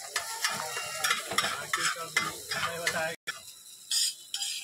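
Metal spatula scraping and stirring eggs on a hot flat griddle, the eggs sizzling, with repeated short scrapes about three a second. The sound cuts out briefly about three seconds in, then one louder scrape follows.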